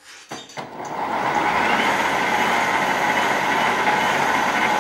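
Warp 9 series-wound DC electric motor of a Farmall M hybrid conversion spinning up under throttle in neutral, with no load. It comes up over about the first second to a loud, steady whir, with a little hunting in speed as the speed controller switches current on and off trying to hold RPM.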